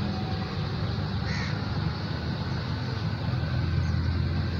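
A bird calls once, briefly, about a second in, over a steady low hum.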